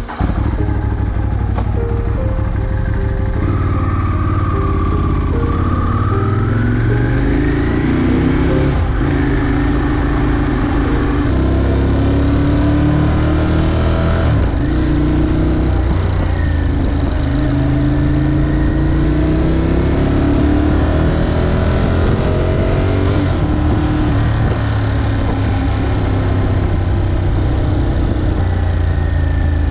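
Ducati Monster 821's twin-cylinder engine through an Akrapovic exhaust, running under way, its note rising again and again as it pulls up through the gears.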